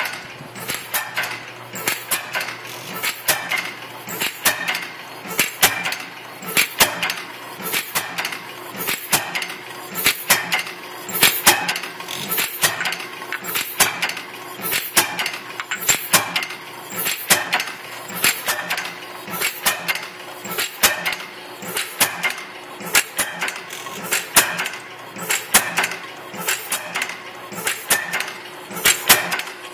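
1914 International Harvester Famous stationary gas engine running, a continuous rhythmic clatter of clicks and knocks from its moving parts, with louder beats about once a second.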